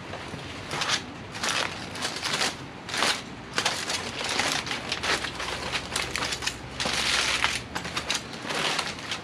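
Aluminium foil crinkling in a run of irregular crackling bursts as it is opened and folded back from a wrapped rack of ribs.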